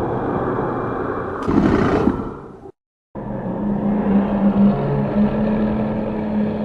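Two cartoon sound effects in a row. The first is a low rumble with a brief hissing burst about a second and a half in, and it fades out. After a short silent gap comes a second rumbling effect with a steady low hum running through it.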